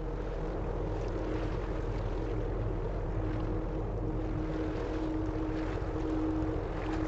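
Ship engines running with a steady drone and low hum, over wind noise on the microphone and water wash.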